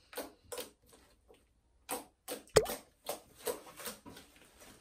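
Homemade slime being pressed and folded by hand, making a string of irregular wet clicks and pops, some with a short dropping plop.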